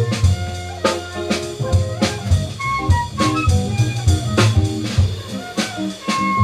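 A live jazz band playing an instrumental passage, with a drum kit keeping a steady beat under a moving low bass line and short melodic phrases.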